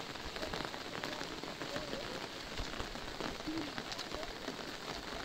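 Light rain falling on fabric umbrellas overhead: a steady hiss with many separate drop ticks.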